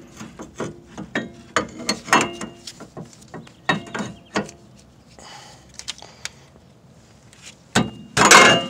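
Metal parts of a rear disc brake clinking and knocking as the caliper and its bracket are handled and pulled off the rotor: a dozen or so short sharp taps, some with a brief ring, then a louder clatter near the end.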